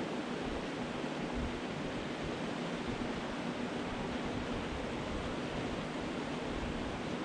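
Steady rush of a shallow mountain creek flowing over a rocky riffle.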